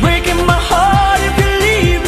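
Dance-pop song with a female lead vocal sung over a steady beat.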